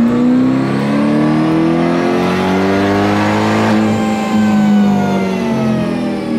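Supercharged C8 Corvette Stingray's LT2 V8 (ProCharger P1X centrifugal supercharger) making a full-throttle pull on a chassis dyno. The revs climb until about four seconds in, then the throttle is lifted and the revs wind down, with a faint high whine rising and falling with the engine.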